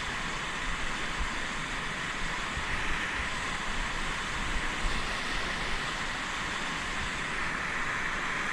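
Fast mountain river rushing past in a steady, unbroken hiss.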